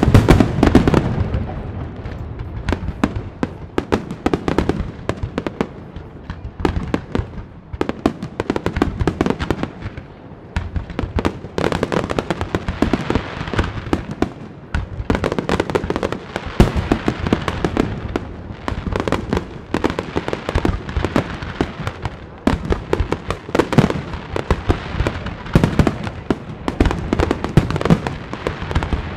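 Fireworks display: a dense barrage of aerial shell bursts, many rapid, overlapping bangs with no let-up, loudest just after the start.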